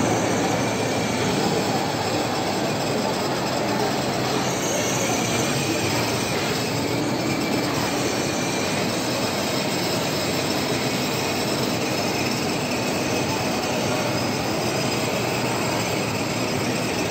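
Electric motor and plastic wheels of a child's battery-powered ride-on toy car running steadily over a tiled floor, a continuous rolling whir.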